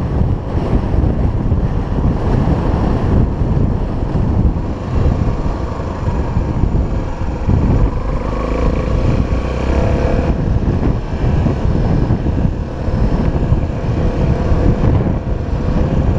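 Wind buffeting the microphone over a Honda XR 250 Tornado, a single-cylinder four-stroke trail motorcycle, running on the move. The noise is loud and steady, and the engine note shows faintly through the wind.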